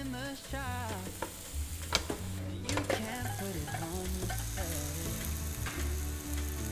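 Panini sizzling on the hot plates of a preheated electric contact grill, a steady frying hiss, with two sharp knocks about two and three seconds in.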